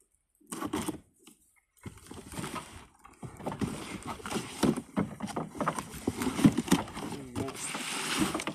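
Cardboard box and packaging being handled and pulled open: irregular rustling and scraping with small knocks and clicks, steadier from about two seconds in.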